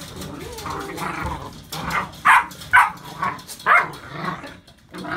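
Puppies play-fighting, giving a string of short, sharp yips and barks; the loudest come in quick succession about two to four seconds in.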